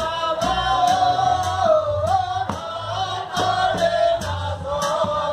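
Dhepa Dhuliya folk music: men's voices singing held, gliding notes together over repeated beats of large dhepa dhol drums.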